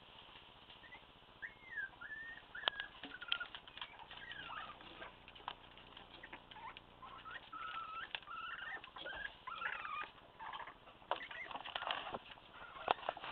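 Month-old Staffordshire Bull Terrier puppies whining and squeaking in many short, high-pitched calls, with scattered clicks and scuffles as they move about.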